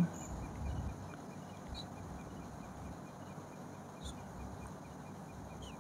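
Quiet room tone: a low steady hiss, with worshippers' clothing rustling softly in the first second as they settle into prostration, and a few faint high ticks.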